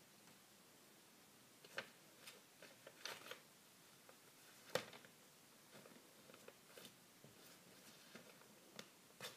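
Faint, scattered rustles and clicks of paper sheets and a ballpoint pen being pawed at by a cat, the sharpest click a little under five seconds in.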